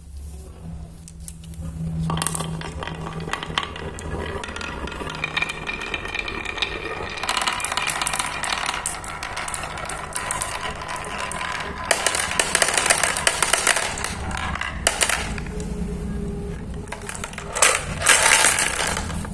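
Balls clattering down a wooden marble run, knocking against wooden pegs in a dense, continuous stream of clicks and rattles. Near the end there is a louder burst of clatter as they pile into a plastic bowl.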